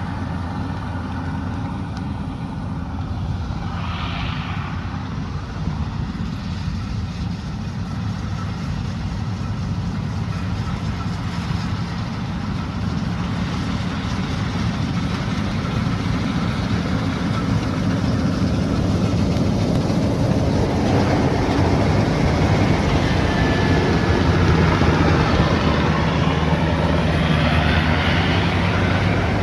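Diesel engine of a rice combine harvester running steadily, getting louder and rougher from about two-thirds of the way through.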